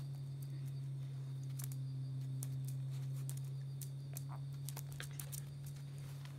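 Light scattered ticks and patters, heaviest in the middle, from a Jack Russell terrier moving about, over a steady low hum.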